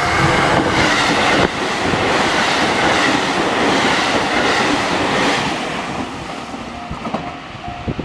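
Tokaido Line electric commuter train passing a level crossing at speed: a dense rush of wheel and rail noise that eases off after about six seconds. The crossing's warning bell rings steadily underneath and comes through again near the end as the train clears, along with a few clacks of wheels over rail joints.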